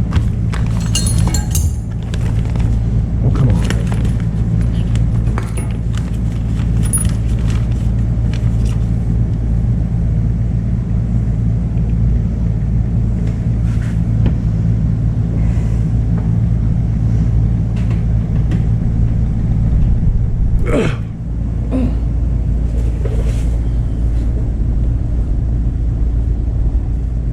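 Steady low hum of a shop fan blowing under a lifted truck, with scattered metallic clinks and rattles of tools and fittings during work on the fuel pump install, and one louder clank about three quarters of the way through.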